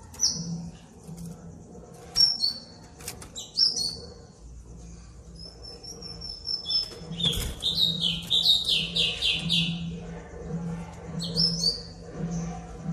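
White-rumped shama (murai batu) singing: short whistled notes and gliding phrases broken by sharp clicks, with a fast run of notes about eight seconds in.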